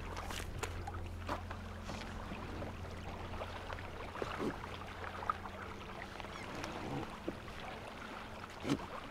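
Faint scattered knocks and scrapes as an inflatable packraft and its paddle are handled at the water's edge, over a low steady rumble that fades out a couple of seconds before the end.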